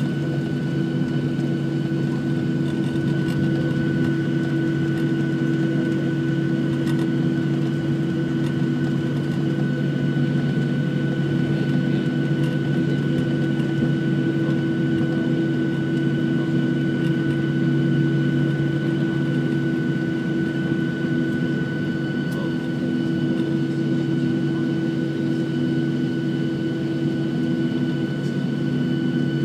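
Boeing 737-700's jet engines at taxi idle, heard inside the passenger cabin: a steady hum with several constant tones over a rushing noise.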